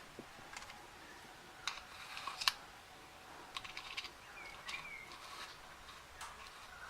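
Scattered light clicks and taps of small objects being handled, irregular and spaced out, with a faint short squeak about four and a half seconds in.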